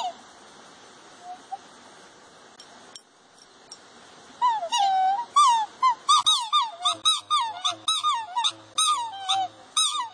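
Black swans calling in display, several birds at once: high calls that bend up and down in pitch. One call sounds at the start, then after a quieter stretch the calls come rapidly and overlap from about four and a half seconds in.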